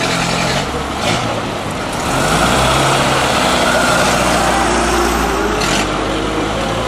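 Vintage 1920s open touring car's engine pulling away close by, its pitch rising as it accelerates past, with another vintage car's engine running behind it.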